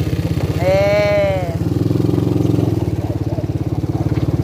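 ATV engine running steadily with an even pulsing beat. About half a second in, a single high cry lasting about a second sounds over it, rising and then falling in pitch.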